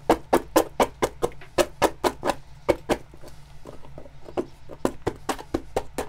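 Rapid, regular sharp knocks, about four a second, thinning out after about three seconds.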